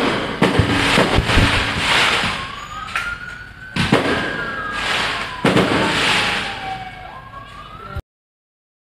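Fireworks going off: sharp bangs and hissing whooshes of rockets going up. Behind them, from about two and a half seconds in, a siren wails, slowly rising and falling. The sound cuts off suddenly near the end.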